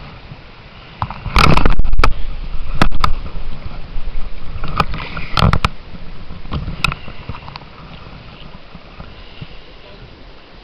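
Irregular splashes and knocks in river water close to the microphone: a loud cluster about a second and a half in, then shorter ones, over a steady flow of water.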